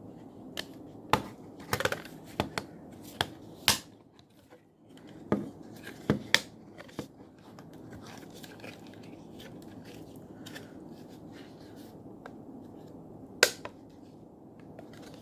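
Sharp clicks and snaps of the phone's internal parts as the board is pried out of a Samsung Galaxy Grand Prime, about a dozen in the first seven seconds, then one more near the end.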